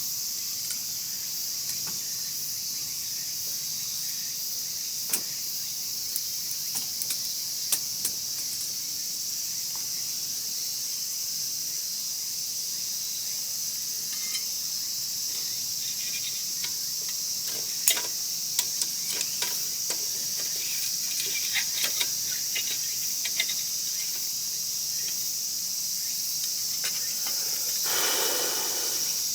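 A steady high chorus of crickets with a wood fire crackling, its sharp pops scattered through and thickest in the middle. A short rush of noise comes near the end.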